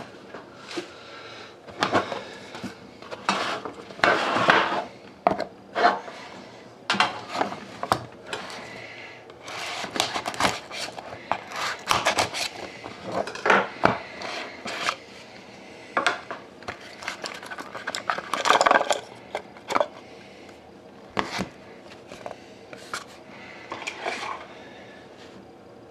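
Hockey trading card box and pack being opened and the cards handled by hand: irregular rustling, sliding and small taps and clicks of cardboard and card stock.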